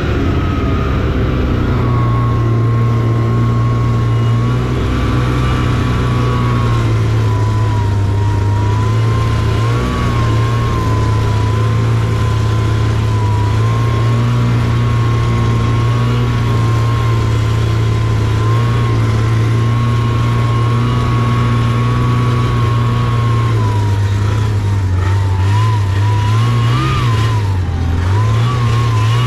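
Taiga Varyag 550 V SE snowmobile running at a steady cruise: an even engine note with a thin whine above it. Near the end the pitch dips and rises a few times as the throttle is eased off and opened again.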